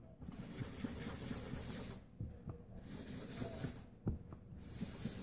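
Foam sponge dabbing and rubbing ink onto cardstock: a faint scratchy rubbing that lets up briefly twice, with a few light taps.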